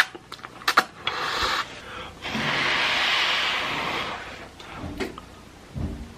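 Eating Korean fire noodles with a fork: a few sharp clicks of the fork on the dish, then a long slurp of about two seconds, and a couple of small knocks near the end.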